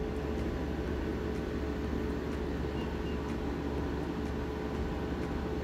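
Steady background hum and hiss of room noise, with one faint steady tone running through it.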